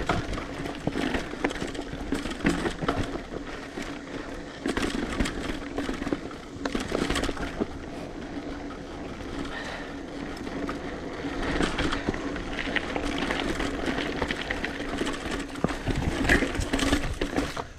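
Mountain bike ridden over a rough dirt trail: tyres rolling on the ground with frequent knocks and rattles from the bike over bumps, and a low rumble of wind on the microphone.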